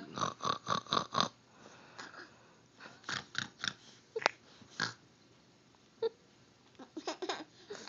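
A young child imitating a pig: a quick run of about six short sounds at the start, then a few scattered shorter ones.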